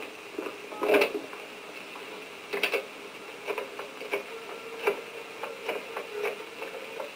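Irregular clicks and knocks, the loudest about a second in, of a wall telephone's handset being handled, over a faint steady hum.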